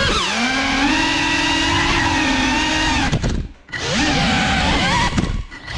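The brushless motors of a GEPRC Cinelog 35 cinewhoop FPV drone whine, their pitch rising and falling with the throttle. The whine cuts out briefly twice, a little past halfway and near the end, as the throttle is dropped.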